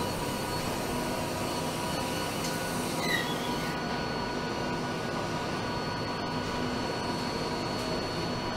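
Steady car-factory machinery noise, with several constant hums and whines over a dense rumble and a brief high squeak about three seconds in.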